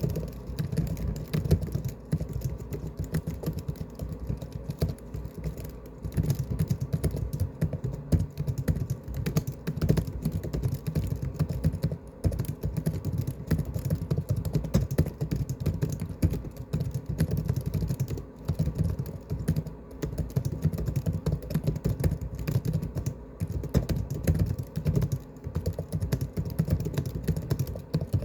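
Fast, continuous typing on a laptop's built-in keyboard: a dense patter of key clicks in runs with brief pauses.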